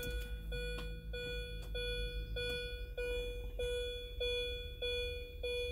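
2002 Mini Cooper's dashboard warning chime beeping over and over, a steady pitched tone about every 0.6 seconds, roughly nine beeps.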